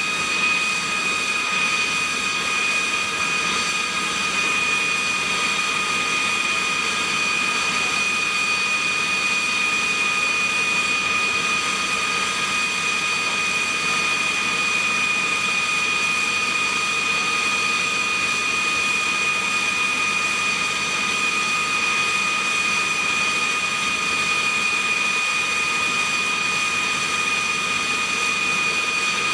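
Aero L-39 Albatros jet trainer's turbofan engine idling on the ground: a steady rushing sound with a constant high-pitched whine that does not change.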